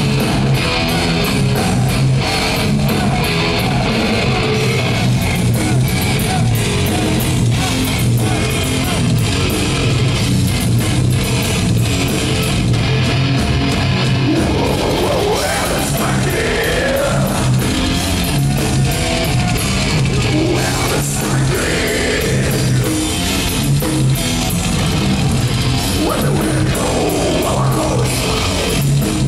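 Death metal band playing live and loud: heavily distorted electric guitars, bass and drum kit, with vocals coming in partway through.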